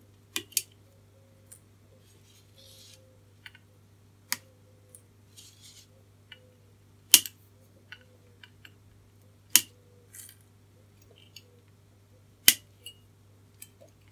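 Flush-cut side cutters snipping through-hole resistor leads on a circuit board: a sharp snap every two to four seconds, with lighter clicks in between.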